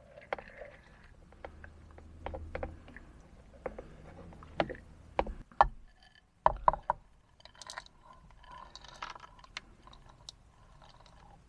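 Clicks and knocks of plastic and ceramic kitchenware handled on a cutting board, the loudest knocks a little past halfway. After them comes a short dry pattering rattle as sunflower seeds are poured from a ceramic bowl into a mini chopper's container.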